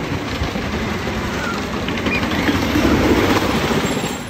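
A Great Coasters International wooden roller coaster train running past on its wooden track. The sound grows to its loudest about three seconds in, then falls away near the end.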